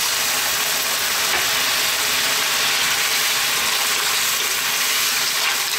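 White wine sizzling and boiling hard in a hot pan of clams, just after it is poured in: a steady, loud hiss while a wooden spoon stirs the shells.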